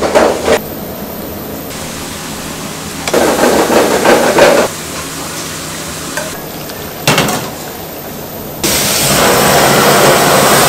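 A few short bursts of handling noise as noodles and vegetables are set into stainless steel bowls, then a handheld butane kitchen blowtorch starting a steady loud hiss about three-quarters of the way in.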